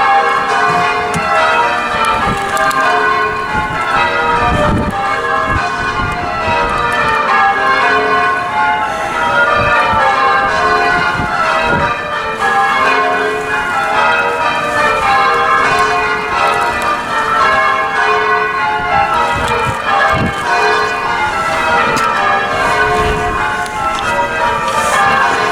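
Church bells rung full-circle by a band in the tower, struck one after another in rows that step down the scale, over and over, with occasional low thuds.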